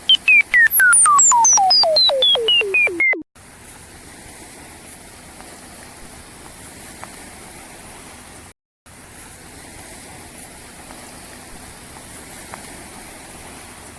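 Comedic falling-pitch sound effect: a tone sliding steadily down from high to low over about three seconds, broken into quick repeated pulses, then cut off sharply. After it only a steady faint hiss remains.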